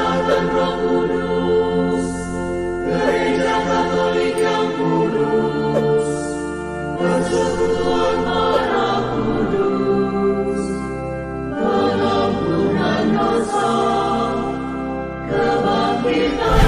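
Background choral music: a choir singing long, held chords in slow phrases.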